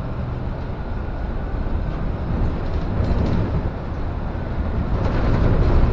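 Inside a moving city bus: steady engine and road rumble, heavy in the low end, growing louder toward the end.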